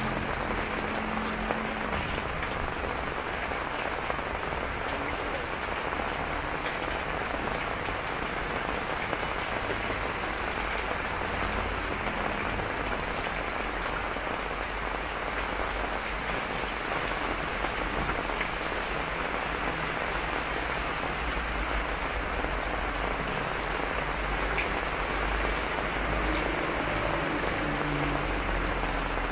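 Heavy typhoon rain falling steadily, drops splashing on a wet floor in an even hiss.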